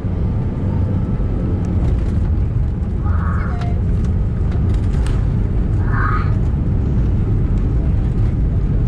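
Steady low rumble inside the cabin of an Airbus A319 rolling along the ground after landing, from its engines and its wheels on the tarmac. A couple of faint short sounds come about three and six seconds in.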